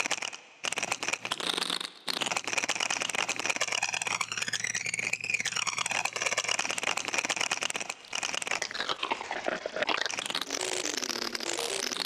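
A wood-rattle recording played back granularly through the Camel Audio Alchemy software synthesizer: a dense crackling, scraping rattle whose pitch sweeps up and down as the pitch and grain-density settings are changed. It drops out briefly a few times.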